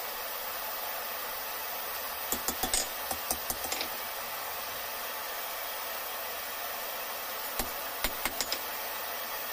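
Light knocks and clicks of small rod tongs and a wooden mallet on a steel anvil as the tongs are tapped into shape: a quick run of about ten knocks a couple of seconds in and another five or six near the end. A steady hiss sits under it.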